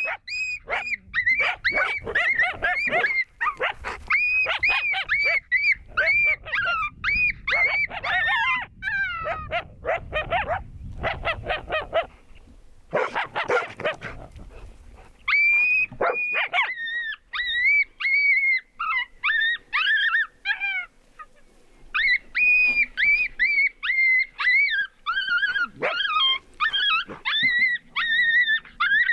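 Canines yipping and howling in a long, rapid chorus of high, wavering calls, with brief lulls twice.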